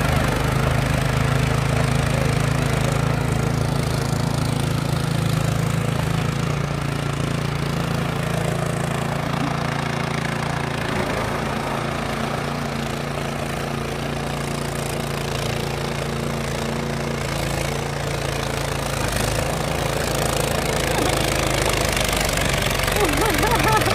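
Snow blower engine running steadily under load as it clears snow and throws it out of the chute.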